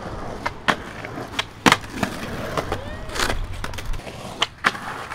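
Skateboard rolling over a concrete sidewalk, the wheels rumbling, with several sharp clacks and smacks of the board. The loudest smack comes about a second and a half in.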